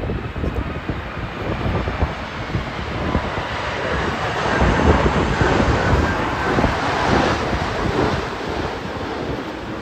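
Jet airliner engines on landing approach, swelling to a peak about halfway and then easing off. Gusty wind buffets the microphone throughout.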